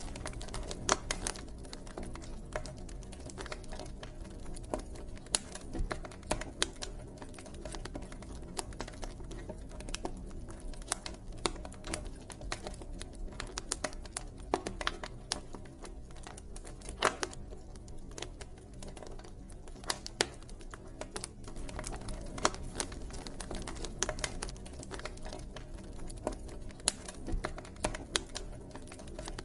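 Campfire burning, wood crackling and popping in irregular sharp snaps of varying loudness over a steady low rumble of flames.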